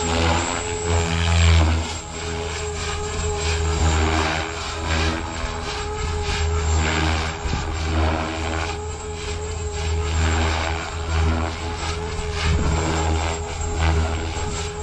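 Electric RC helicopter, a Synergy 516 powered by a Scorpion 4020 brushless motor, flying aerobatics. The motor and gears give a steady whine and the rotor blades whoosh, the sound swelling and fading as the helicopter swoops and turns.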